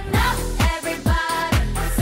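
K-pop girl-group song: voices singing over deep kick drums that drop in pitch, about two a second.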